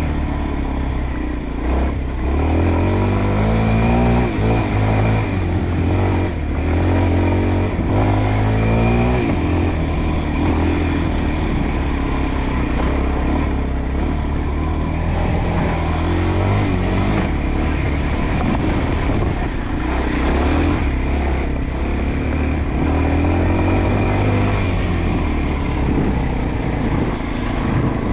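Enduro dirt bike engine running under load as it is ridden, its revs climbing and falling back several times as the rider accelerates and shifts.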